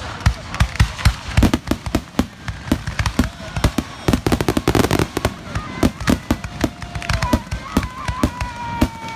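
Fireworks going off in a dense, rapid series of bangs and crackling pops, with a high whistling tone near the end.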